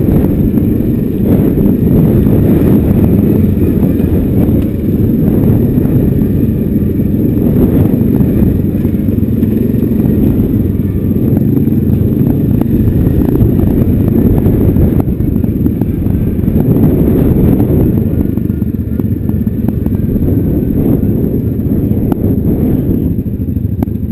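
Single-cylinder four-stroke ATV engine running steadily while the quad rides over a rocky trail, with the rattle and clatter of the machine bouncing over stones. The engine eases off a little near the end.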